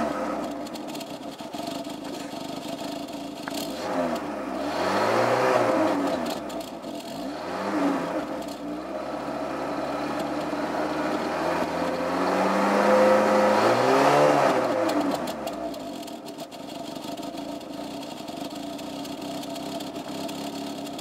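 VW Golf Mk2's 1.3-litre four-cylinder petrol engine breathing through a TA Technix EvoG2 60 mm aftermarket muffler, idling and revved several times. It rises and falls about four to six seconds in, blips briefly near eight seconds, climbs slowly, then peaks again around fourteen seconds before settling back to a steady idle.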